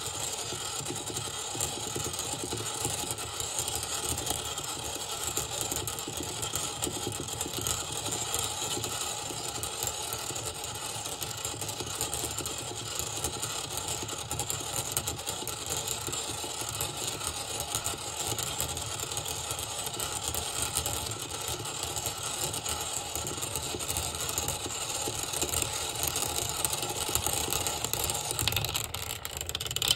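Motor-driven stirrer base running steadily, spinning a vortex in a water-filled glass cylinder: a constant mechanical whir with water churning and a dense, fast fine rattle, slightly louder near the end.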